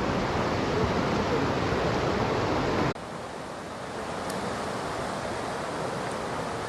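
Mountain stream water rushing steadily over rocks. About three seconds in it cuts suddenly to a quieter rush of water.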